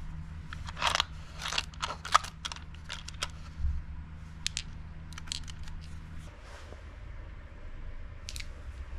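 Hand work on tools and materials: irregular clicks, crunches and scrapes, most of them in the first half. A steady low hum underneath stops about six seconds in.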